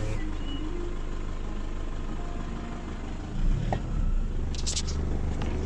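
Toyota Hilux pickup engine running steadily, heard from inside the cab, with a low thump about three and a half seconds in and a few short clicks just after.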